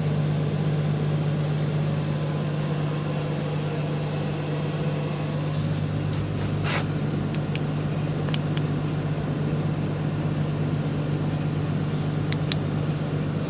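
Steady low hum of an idling vehicle engine, with a few light clicks now and then.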